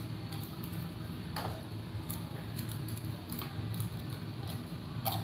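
Light handling sounds on a table: a few faint clicks and rustles as small parts are picked up and moved, over a steady low hum.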